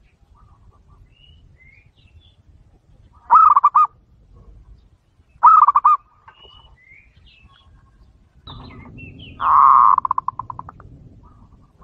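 Zebra dove (perkutut) song: two short, quavering coos about three and five and a half seconds in, then a louder coo near the end that trails off into a quick, fading run of pulses. Faint chirps of small birds sound behind it.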